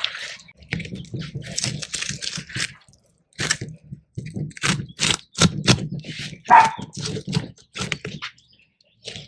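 Long knife cutting a large mahi mahi fillet away from the backbone: a run of short, sharp cutting and scraping strokes as the blade works through the flesh and along the bone, with brief pauses between passes.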